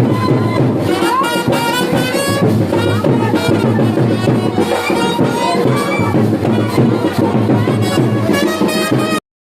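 Music with brass and drums playing, cutting off suddenly near the end.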